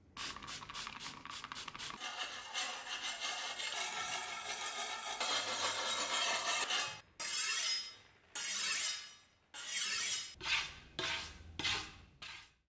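A hand-held round sharpening stone scraping along the steel edge of a bardiche axe blade as it is sharpened. It goes in quick short strokes at first, then a continuous scrape, then separate longer strokes with short pauses between them.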